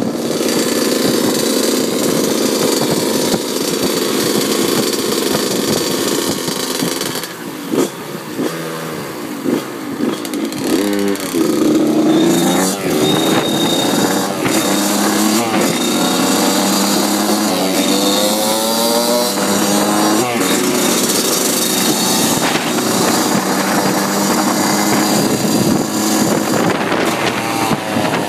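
Dirt bike engine running under the rider while riding, revving up repeatedly with its pitch climbing several times in the second half.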